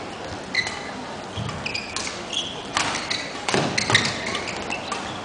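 Badminton rackets hitting the shuttlecock in irregular sharp strikes, mixed with short high squeaks of players' shoes on the court mats, over a low hall background.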